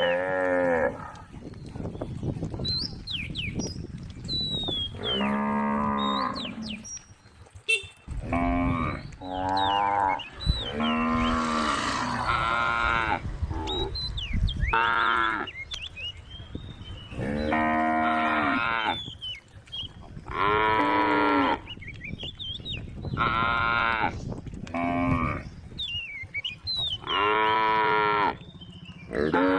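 Cows mooing again and again, about a dozen long calls from several animals calling to one another across the herd.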